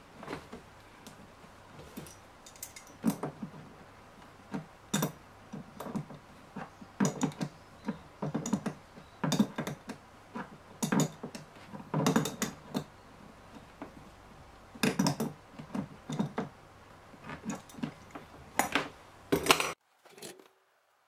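Metal wrench clicking and knocking on a nut fitted through the top of a plastic 50-litre tank as it is tightened: irregular clicks and clinks, a cluster every second or so.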